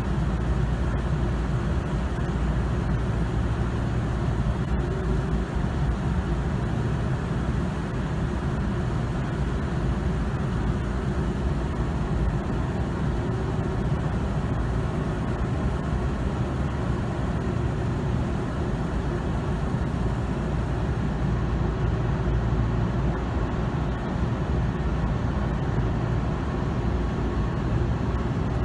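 Steady low hum and rumble of a commuter train standing at a station platform, heard from inside the car, with its onboard equipment such as air conditioning running. The level stays even with no passing trains, door chimes or announcements.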